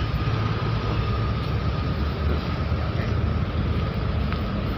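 Steady low rumbling drone of running machinery, with a thin steady whine above it.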